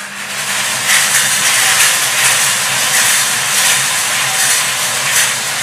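Numbered lottery balls tumbling and clattering inside five hand-cranked wire-cage drums spun at once, a dense, steady rattle that builds over the first second.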